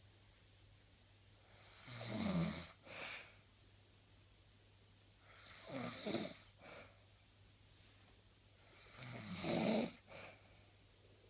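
A person snoring in sleep: three snores about three and a half seconds apart, each a longer rasping breath followed by a brief second one.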